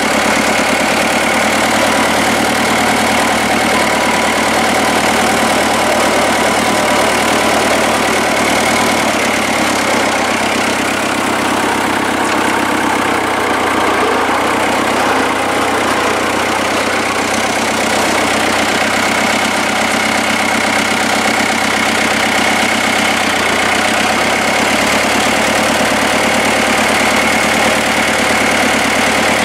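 Farm tractor's diesel engine running steadily at an even speed, heard up close from the driver's seat.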